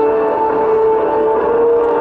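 CP-140 Aurora's four Allison T56 turboprops droning in flight, a steady pitched hum.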